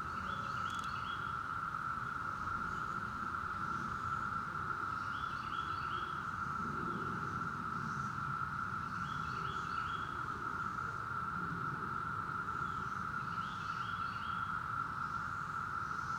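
Northern mockingbird singing short phrases of quick stepped notes, one about every four seconds, over the steady, unbroken drone of a Brood X periodical cicada chorus, with a low rumble underneath.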